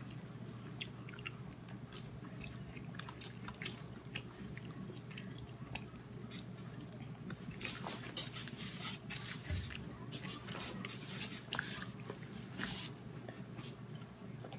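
A baby eating: scattered small mouth-smacking and clicking sounds over a steady low hum.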